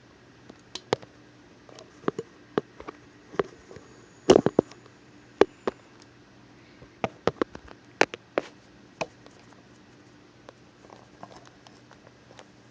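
Victorinox Cyber Tool Lite Swiss Army knife's tools being pried out and snapping open: a string of irregular sharp metal clicks, with a cluster of louder snaps about four seconds in.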